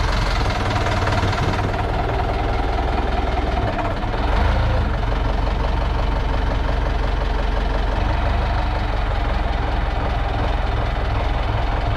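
Diesel engine of a Desta 3-tonne off-road forklift running steadily, briefly louder about four seconds in.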